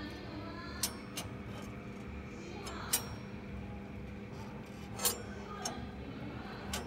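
Steady low electrical hum with a few sharp, isolated clicks at irregular intervals, and faint voices in the background.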